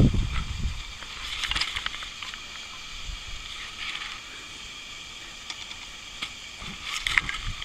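Faint rustling and scuffling of puppies playing in grass, pawing and tugging at a chew, with scattered short scratchy sounds. A low rumble of wind on the microphone dies away in the first second.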